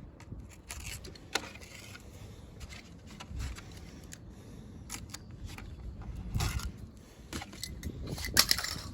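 Handling sounds of peeling the backing off double-sided adhesive tape and handling a plastic strut tower cover: scattered clicks, rustles and light scrapes, with the longest rustles near the end.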